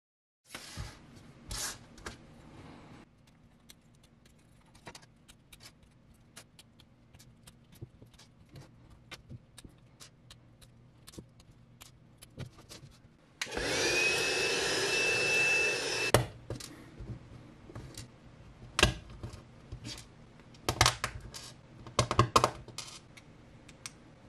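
Plastic flush cutters snipping 3D-printed PLA parts off a printed kit card, a scatter of sharp clicks, then small plastic parts clicking as they are pressed together. About halfway through, a small motor spins up with a rising whine and runs steadily for about three seconds, the loudest sound here.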